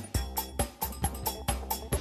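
Background music with a steady percussive beat, about four hits a second, over a low bass.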